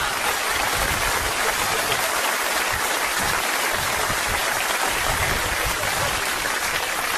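A steady rushing, hissing noise, even and unbroken, with no voices in it.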